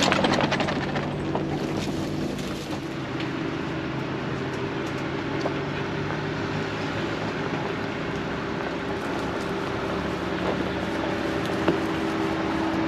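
Vehicle engine running steadily at an even speed, an unbroken drone over tyre and road noise, with a single short knock near the end.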